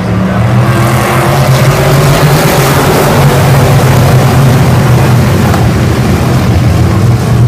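A pack of hobby stock race cars racing past on a dirt oval, many engines at full throttle blending into one loud, dense roar. It swells about a second in as the field comes by.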